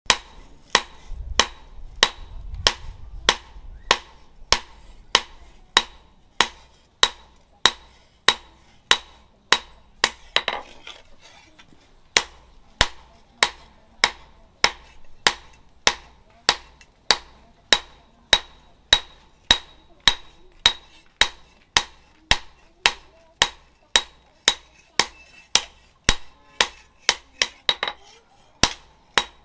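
Hand hammer forging a hot steel rebar knife blade on a post anvil: sharp metal-on-metal strikes in a steady rhythm, about two a second.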